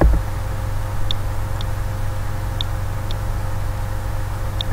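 Steady electrical hum on the recording line, with fainter higher overtones, and about five faint short clicks spread through it from a computer mouse.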